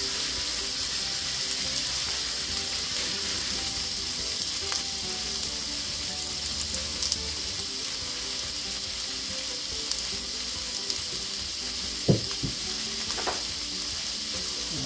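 Diced beef steak frying in hot oil in a cast-iron skillet, a steady sizzle with small pops, the meat just added and starting to sear. A sharp knock about twelve seconds in, and a lighter one about a second later.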